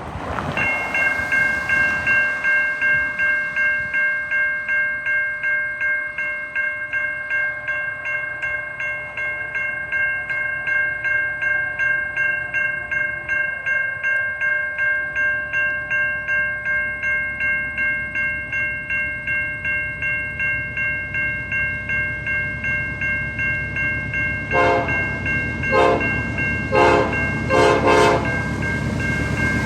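Grade-crossing warning bell ringing steadily, about two strikes a second, as a train approaches. Near the end a locomotive's Nathan P5 five-chime air horn sounds a quick series of about five short blasts over the growing rumble of the train.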